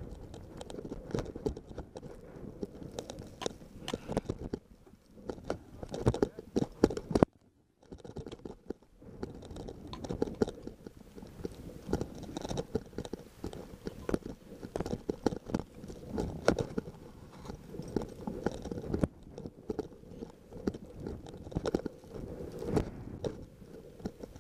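A climber's boots and crampons crunching step by step up firm snow, a quick, irregular run of crunches and scuffs. There is a brief break a little after seven seconds in.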